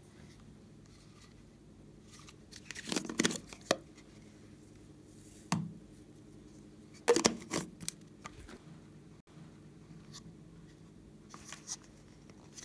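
Plastic slime containers being handled and squeezed as slime is pushed out onto a sequin-covered tray of slime. There are several short clusters of clicks and rustles: about three seconds in, once near five and a half seconds, around seven seconds, and briefly near the end.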